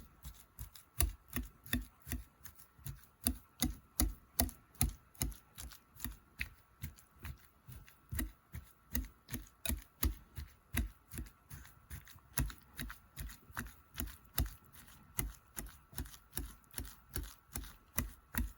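Cooked potatoes being mashed in a bowl with a wire whisk: a steady run of soft thuds and clicks, about three strokes a second.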